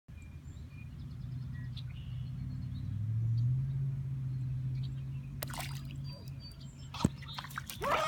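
A low steady hum that steps up in pitch about three seconds in and fades after about six seconds, with a short sharp knock about seven seconds in.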